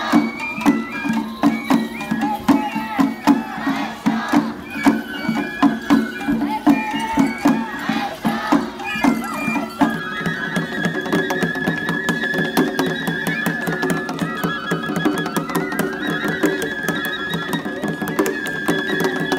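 Traditional Japanese festival music for the umbrella and lion dances: a steady drum beat of about two strokes a second under a high melody. About halfway through the music changes to long held high notes over a faster, denser beat.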